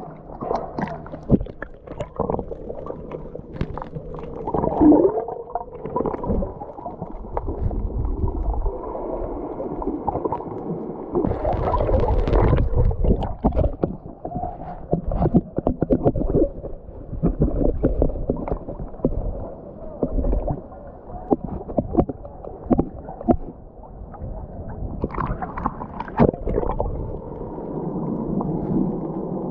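Sea water sloshing, splashing and gurgling around a waterproof camera at the sea surface as it dips in and out of the water, with many small splashy clicks. The sound is loudest a little before halfway.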